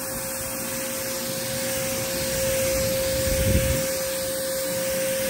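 Pressure washer spraying water through the 15-degree setting of a 5-in-1 quick-connect nozzle against a car wheel and tyre: a steady hiss of spray with a steady tone underneath.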